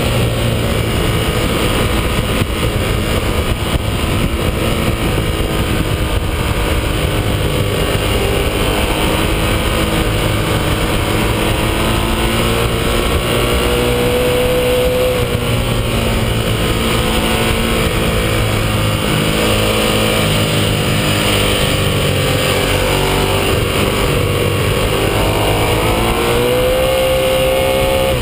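Ducati 1198S's 1198 cc L-twin engine under hard riding at track speed, its pitch rising and falling as the rider works the throttle and gears through the corners, climbing twice to a high rev.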